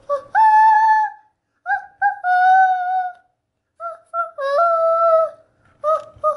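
A child's voice singing or humming a wordless tune: a series of held notes, each about half a second to a second long, stepping between a few pitches with short breaks between them.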